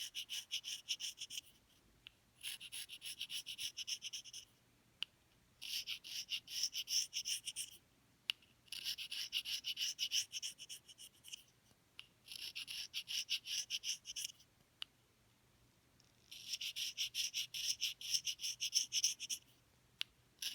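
Reed knife scraping the bark off the cane of an English horn reed blank in quick, rapid strokes. The scraping comes in six runs of a few seconds each, with short pauses between.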